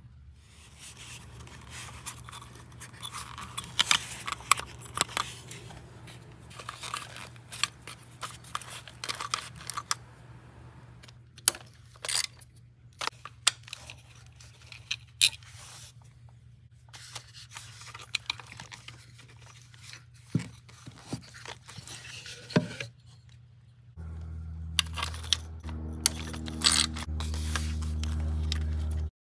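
Hand tools and engine parts being handled: scattered clicks, knocks and scraping. Near the end a steady low hum starts, runs for about five seconds and cuts off suddenly.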